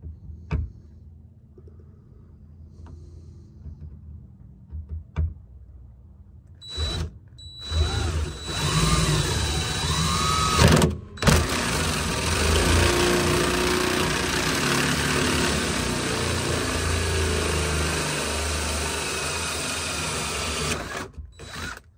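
Power drill running a Bosch hole saw through the wall of a camper tub. A few light clicks come first; then the saw cuts steadily for about fourteen seconds, with one brief stop about halfway, until the hole is through near the end.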